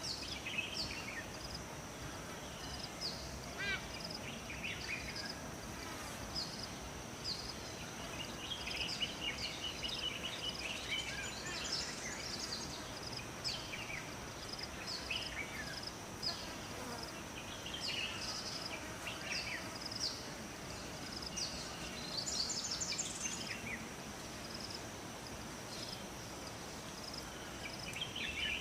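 Forest ambience: several birds calling and warbling over a steady background hiss, with a high steady insect-like drone and a short high chirp repeating about once a second.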